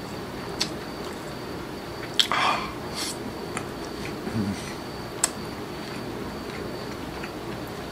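Person eating fried chicken: chewing with a few sharp lip-smacking clicks and a short, louder mouthful noise a little over two seconds in. A brief low hum of the voice comes around four seconds in.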